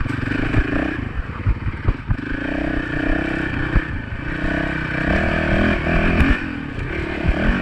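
Honda dirt bike engine running under way, its pitch rising and falling with the throttle, with frequent knocks and clatter from the bike jolting over the rough trail.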